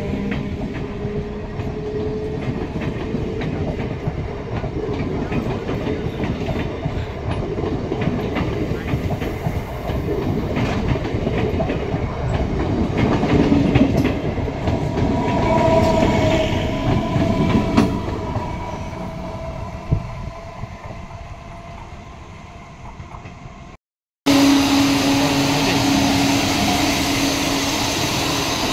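A MEMU electric passenger train running past at speed, its wheels clattering over rail joints; the noise fades as the last coaches go by. After a sudden break about 24 seconds in comes a steady hum from another MEMU train.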